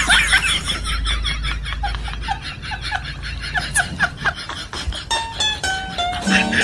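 Laughter, a quick string of short 'ha-ha' bursts that fades out over the first four seconds, then music with held notes starts about five seconds in.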